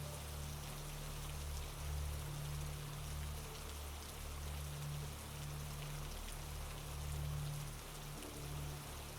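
Steady rain falling, with a low rumble underneath that swells and fades.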